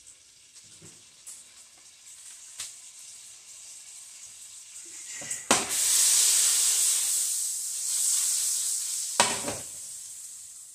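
Butter sizzling in a hot frying pan, faint at first, then a loud hiss for several seconds from about halfway that slowly eases. A sharp knock of the pan comes as the hiss starts and another near the end, as a burger bun goes into the butter.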